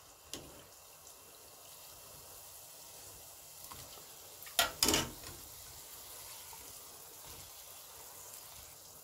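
Hot frying oil sizzling faintly and steadily in a deep pan after chebakia pastries have been lifted out. A short double clatter about halfway through.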